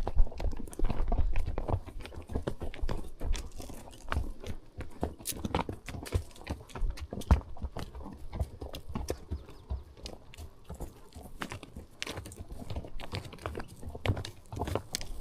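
Horse's hooves on a forest trail: a continual uneven run of low thuds and crunching steps, with sharper clicks scattered among them.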